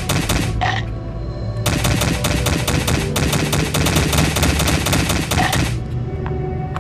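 A rapid, even run of sharp clicks, about ten a second, lasting some four seconds. It sits over background music.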